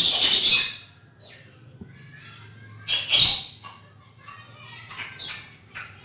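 Birds calling: two loud harsh squawks, the first right at the start and the second about three seconds in, then a run of short high chirps about twice a second from about four seconds in, over a faint steady low hum.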